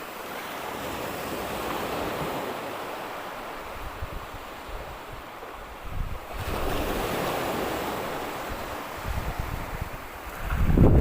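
Small sea waves washing onto the shore, swelling twice, with wind buffeting the microphone.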